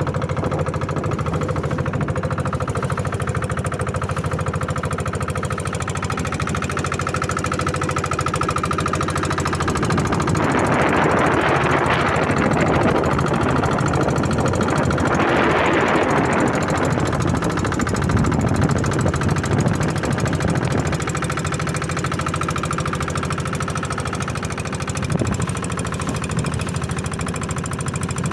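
A boat's inboard engine running steadily with a fast, hard knocking beat. A rushing noise swells over it for several seconds about ten seconds in.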